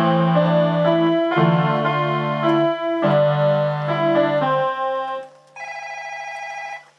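Electronic keyboard playing sustained, organ-like chords over a held bass note, in three phrases broken by short gaps. Near the end the level drops and a single held note in a brighter tone sounds for about a second.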